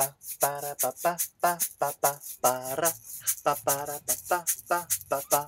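Background music: a song with a voice singing short, rhythmic phrases over a beat.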